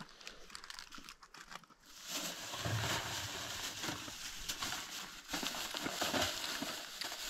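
Crinkly rustling noise full of small crackles, faint at first and much louder from about two seconds in.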